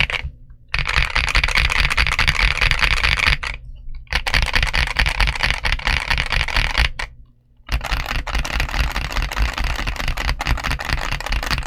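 Fast typing on a GMK61 mechanical keyboard with MMD Honey tactile switches and XVX Retro PBT keycaps: a dense run of key clacks, broken by short pauses about half a second in, near four seconds and around seven seconds.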